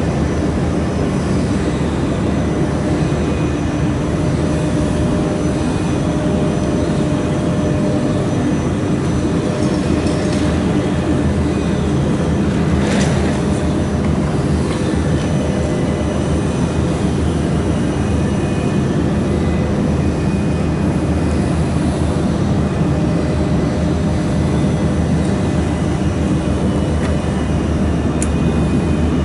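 Steady, unchanging hum and whir of a mould laser welding machine running, with one brief tick about halfway through.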